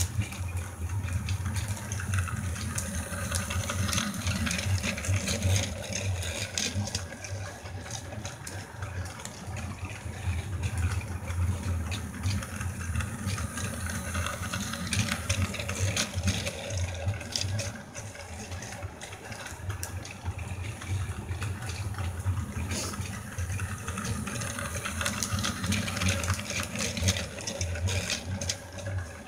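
Battery-powered toy train on plastic track: the small motor hums steadily and the wheels clatter and click along the rails. It is louder as the train passes close by about halfway through, quieter while it is on the far side of the loop, and rises again near the end.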